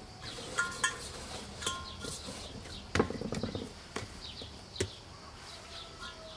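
Hands kneading bread dough in a large enamel bowl: a few knocks and pressing thumps, the loudest about three seconds in, with small birds chirping in the background.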